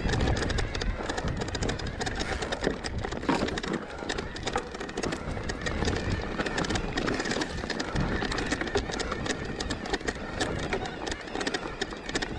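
Electric mountain bike on a rough, rocky trail climb: a dense, irregular run of clicks and knocks from the tyres, chain and frame going over stones.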